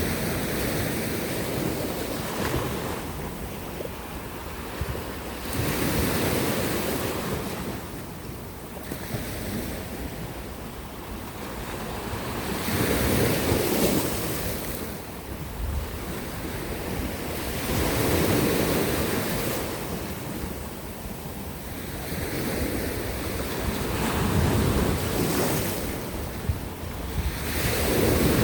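Sea surf breaking on coastal rocks, the noise of the water swelling and falling back in waves about every five to six seconds.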